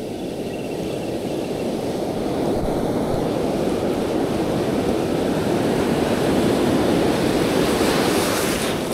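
Ocean surf washing on the beach: a steady rush of waves that slowly builds and swells to its loudest near the end as a wave comes in.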